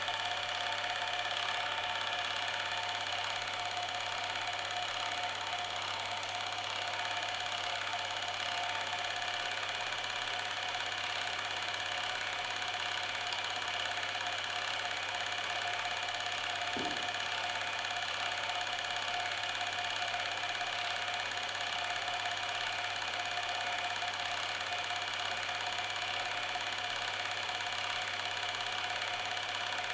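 A steady mechanical whirring drone with a low hum underneath, unchanging in level and pitch, with one brief faint blip about seventeen seconds in.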